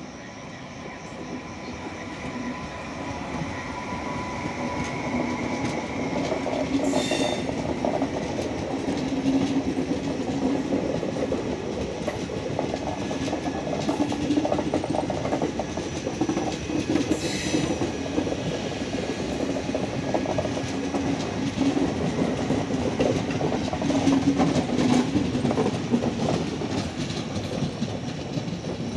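Passenger train rolling past, growing louder over the first several seconds, its wheels clacking rhythmically over the rail joints under a steady rumble. Two brief sharp noises cut in, about seven and about seventeen seconds in.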